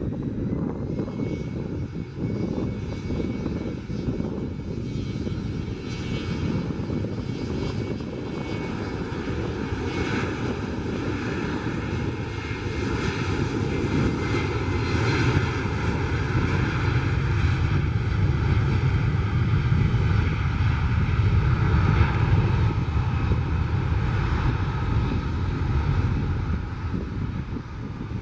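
Turbofan engines of a twin-engine regional jet running on the runway: a steady whine over a low rumble that builds louder about halfway through as the jet rolls away.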